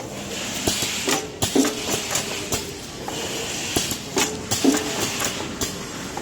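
Drinking-straw bundling machine running, clacking sharply about once or twice a second over a steady hum as it cycles.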